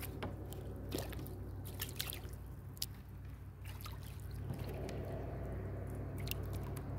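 Water dripping and light splashing close by, with scattered small clicks and knocks from handling gear in the kayak.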